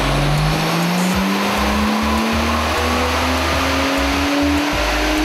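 Nissan Skyline R33's turbocharged straight-six under load on a chassis dyno during a power run, its engine note rising slowly and steadily in pitch as the revs climb, with background music.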